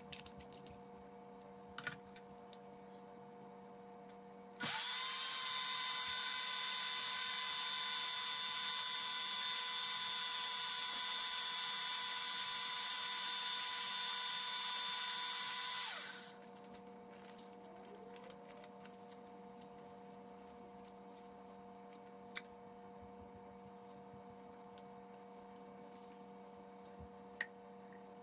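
Countertop blender motor starting abruptly and running at a steady high whine for about eleven seconds, blending paper scraps and water into pulp, then winding down. Light clicks and taps of handling the blender jar and paper come before and after.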